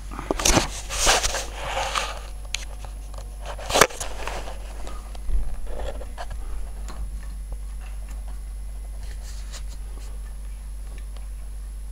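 Rustling and scraping of close handling, with a sharp click about four seconds in, then fainter scattered scrapes. Under it runs a steady low hum from a Samsung WF9700N3W washing machine on its wool cycle.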